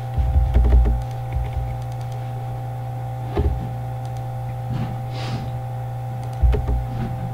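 A steady electrical hum with a few steady higher tones in it, with scattered clicks of a computer mouse and keyboard and a few low thumps, the strongest in the first second and near the end.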